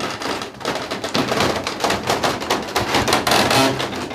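Large wooden wheel of an old cloth-printing press turning, its wooden works clattering and knocking in quick, irregular clicks.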